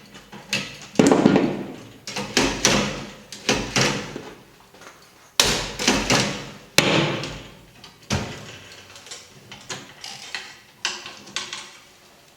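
Irregular knocks, clunks and rattles of the Magnet Machine's frame, pulleys and cable being pushed and adjusted by hand. The loudest clunks come in the first seven seconds, with lighter taps after.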